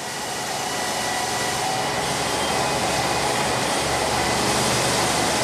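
Smaller wheels driven by electric motors spin an Airbus A380 main landing gear's big 55-inch tyres in reverse, making a steady whirring rush that builds over the first couple of seconds and then holds. The tyres are being spun up to simulate landing speed before a drop test.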